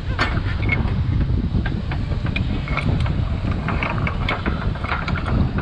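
Packaged meals being rummaged through and handled, making a run of small clicks and rattles, over a steady low rumble.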